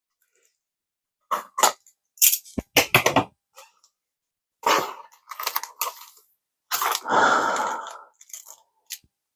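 Packing material being unwrapped by hand, in irregular clusters of crinkles and crackles with a longer rustle near the end.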